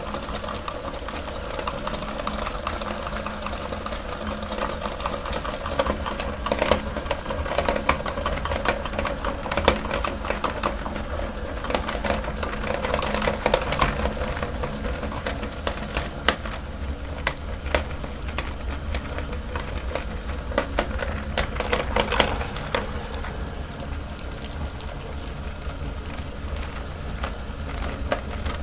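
Electric meat grinder running with a steady motor hum while its auger crushes chocolate-coated bananas, with a dense stream of small crackles and clicks throughout.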